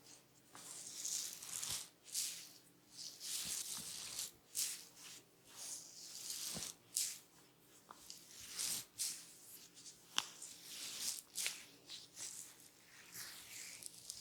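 Hands rubbing and scrunching against hair and skin in a head massage: uneven swishing strokes, with a few sharp clicks.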